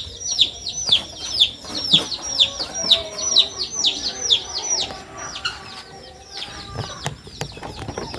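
Guinea fowl keets peeping: a fast run of high, downward-sliding peeps, about two to three a second, that thin out about five seconds in.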